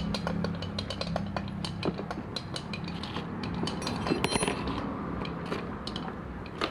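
Many light metallic clinks and taps of tools and small metal parts being handled, scattered over several seconds, over a low steady hum.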